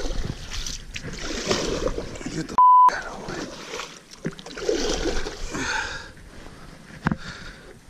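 An editor's censor bleep: a single steady 1 kHz tone about a third of a second long, blanking the audio about two and a half seconds in, amid muffled grumbling speech and a couple of knocks from the boat.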